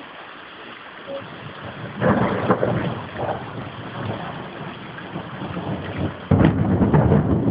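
Thunder following a lightning flash: a crackling clap about two seconds in that rumbles and fades, then a louder, deeper rumble starting near the end.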